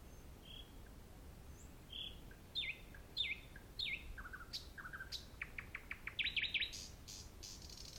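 Nightingale singing one varied phrase. It opens with a few soft notes, then gives repeated down-slurred whistles and some lower notes, then a series of sharp clicking notes that speeds up, and ends in a rasping high trill.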